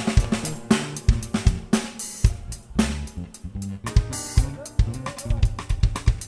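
Music dominated by a drum kit: a busy funk-style drum passage of snare, bass drum, hi-hat and cymbal hits over a bass line.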